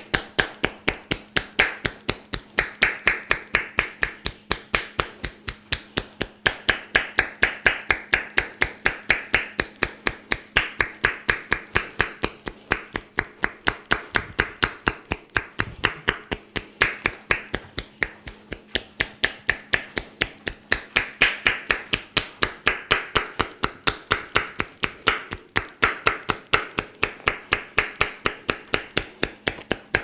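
Massage hands striking in a fast, steady rhythm of sharp slaps and claps, several a second: percussive tapping massage.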